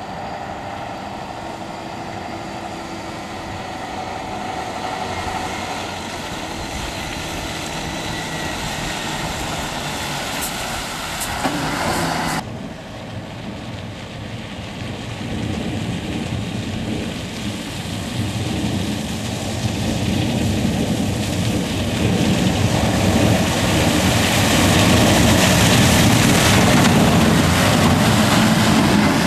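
Mercedes-Benz SK 3544 dump trucks' diesel engines running as they drive over a dirt haul road. The sound breaks off abruptly about twelve seconds in, then builds louder as a truck drives close past near the end.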